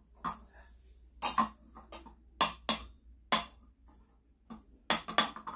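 Sharp metallic clinks and knocks as a steel hand tool strikes the brass fuel tank of an M1950 gasoline stove: about eight knocks at irregular spacing, some in quick pairs.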